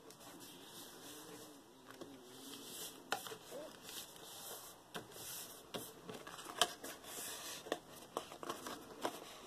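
Paper rustling and crinkling as sheets of paper are smoothed, pressed flat and folded by hand, with scattered sharp crackles and taps that grow busier after the first few seconds; the loudest crackle comes about two-thirds through.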